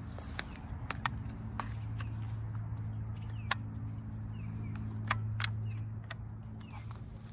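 Small two-stroke engine of an Echo CS-2511T top-handle chainsaw idling steadily while it warms up, a low even hum. Scattered sharp clicks and a few short high falling chirps sound over it.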